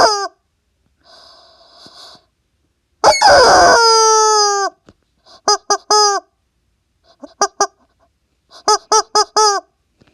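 A toy making a run of honking, squeaky tones: one long tone about three seconds in, then short ones in quick groups of three, three and four, each tone sliding down in pitch as it ends.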